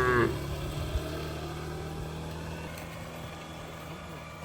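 A cow's long moo cuts off just after the start, then a steady low engine hum runs on at an even pitch.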